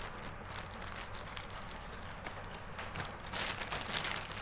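Scissors snipping through a thin plastic mailer bag, small crackling cuts, then louder plastic crinkling near the end as the bag is handled and pulled open.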